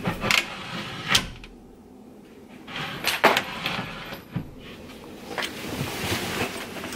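A hinged wooden wall panel being handled and moved, giving a series of sharp knocks and clicks with a quieter pause about a second and a half in.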